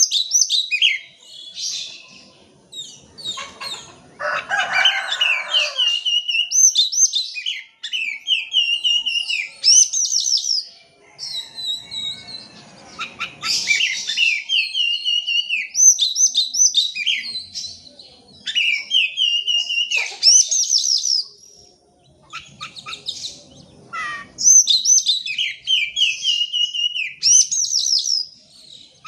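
Oriental magpie-robin (kacer) singing loud, varied whistled phrases, many of them fast runs of repeated down-slurred notes, with a brief harsher rasping passage about four seconds in. This is the full, energetic song used as a lure to set off a quiet caged magpie-robin.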